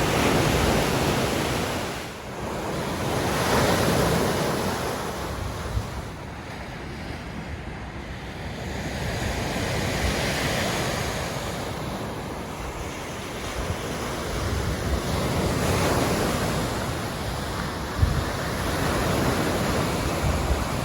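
Lake Michigan waves breaking on a beach, the surf swelling and falling away every few seconds, with wind buffeting the microphone.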